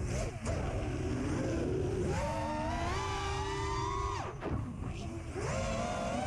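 FT210 quadcopter's electric motors whining, the pitch rising and falling with the throttle: steady for a stretch, dropping sharply about four seconds in, then climbing again near the end. A constant low rumble of wind buffets the microphone.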